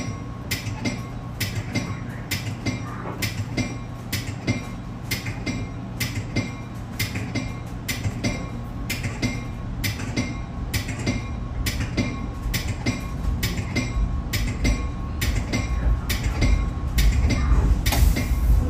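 Caltrain commuter train heard from on board: a steady low hum with a sharp click about twice a second. A deeper rumble swells over the last few seconds.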